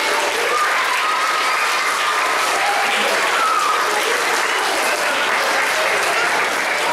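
Audience applauding, a dense steady clapping, with voices calling out over it.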